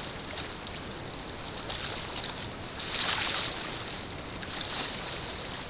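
Small waves lapping and splashing against a rocky shoreline, with a few louder splashes about two and three seconds in and again near the end, over light wind.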